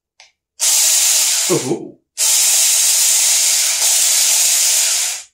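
Saker battery-powered mini chainsaw run with no load in two short bursts, a loud steady hissing whir that starts and cuts off abruptly each time. A brief grunt of a man's voice sounds during the first burst.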